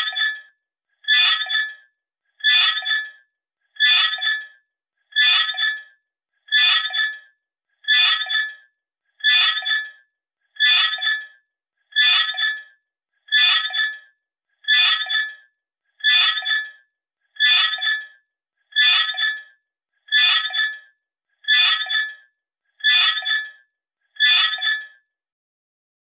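Metal hammer flutter: a short fluttering burst of bright metallic clinks, repeated the same way about once a second, each starting sharply and fading within about half a second. The bursts stop about a second before the end.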